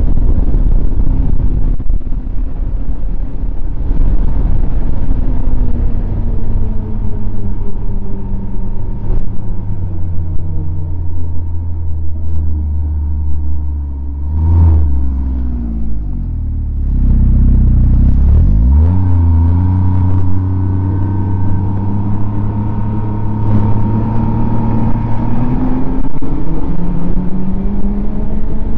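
Snowmobile engine running under way, its pitch sinking steadily as the machine slows to a near stop about halfway through, then climbing again as it speeds back up, with another rise near the end.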